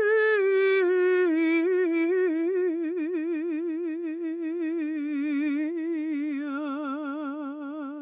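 An elderly woman singing one long wordless operatic line. The pitch steps slowly downward, and the vibrato grows wider and heavier as it goes on. It cuts off just after the end.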